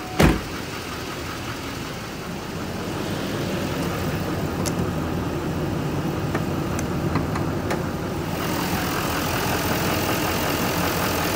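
Duramax 6.6-litre V8 turbodiesel in a 2014 GMC Sierra 2500HD idling steadily, very quiet. It is heard louder and clearer from about eight seconds in, once the open engine bay is reached. A sharp knock comes right at the start, and a few light clicks follow a few seconds later.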